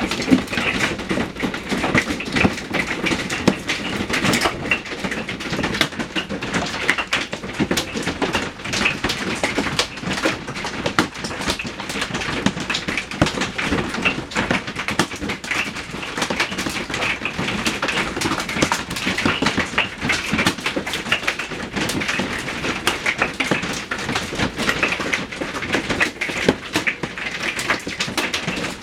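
Hail striking a roof or vehicle body: a dense, unbroken clatter of rapid small impacts that holds steady.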